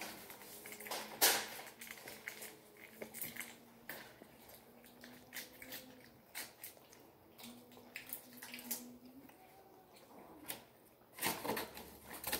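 A person chewing a mouthful of a bun sandwich close to the microphone, with irregular wet mouth clicks. The loudest are about a second in and again near the end.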